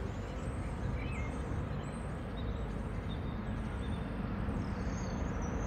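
Outdoor ambience: birds giving short, high chirps now and then over a low, steady rumble.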